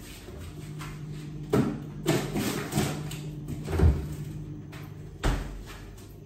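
A refrigerator door is opened and groceries are set on its shelves with several knocks and rustles, while a steady low hum runs. About five seconds in, the door shuts with a heavier thump and the hum stops.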